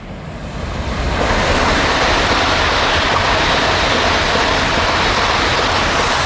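A Class 387 electric multiple unit train, three units coupled, passing through the station at speed without stopping. A loud, steady rush of wheels on rail and moving air builds over the first second and begins to fade at the very end.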